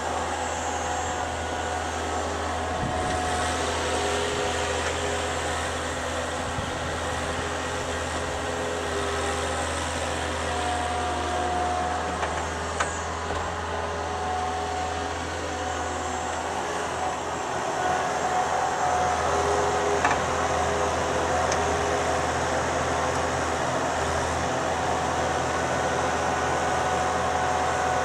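Thomas 153 skid steer loader's engine running steadily, a little louder about two-thirds of the way through.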